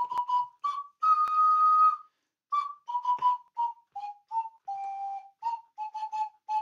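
Small ocarina played in a string of short hopping notes with a few longer held ones. The melody climbs to a held high note about a second in, then steps downward to a longer, lower held note about five seconds in.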